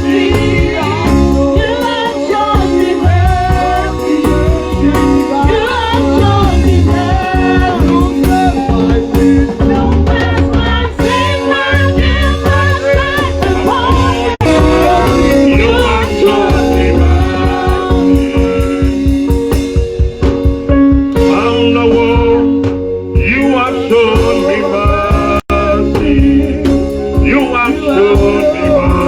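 Live gospel worship song: voices singing over a band with a steady drum beat.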